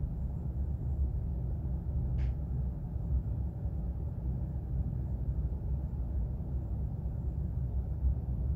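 Steady low background rumble, with a brief faint hiss about two seconds in.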